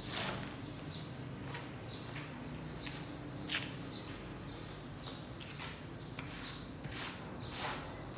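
Rubber floor squeegee pushed in repeated short strokes over a soaked, foamy rug, scraping the soapy water off the pile, with a sharp tap about three and a half seconds in.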